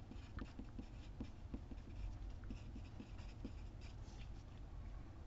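Pencil writing on paper held on a clipboard: faint scratching in many short strokes as a word is written.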